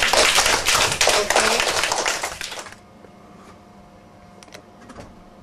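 Children applauding with many quick, overlapping claps that stop abruptly a little under three seconds in. A quiet room follows, with a faint steady hum and a few soft clicks.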